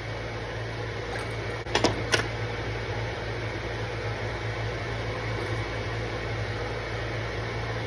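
Steady fan-like mechanical hum in a small room, with two short, sharp knocks about two seconds in.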